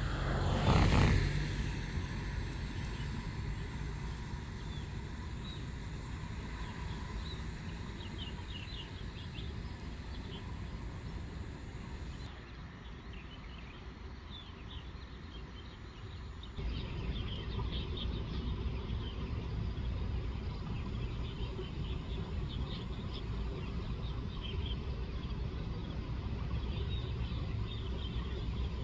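Outdoor rural ambience: a steady low rumble with many short, high bird chirps scattered through it, and a brief loud rush of noise about a second in.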